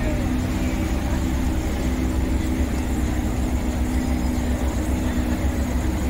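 Porsche 911 GT3 flat-six engine running at low revs as the car creeps away at walking pace: a steady, even engine note with no revving.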